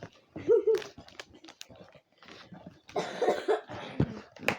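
A person coughing and making short vocal sounds, with a few small clicks and a thump in between.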